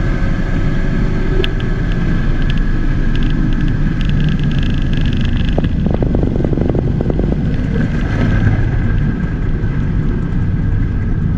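Holden Commodore's V8 running steadily at cruise, a constant low exhaust rumble with road noise. A few light ticks and a short cluster of knocks are heard about halfway through.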